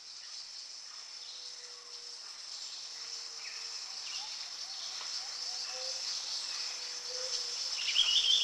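Steady chorus of insects such as crickets, with a few short chirps over it, growing gradually louder.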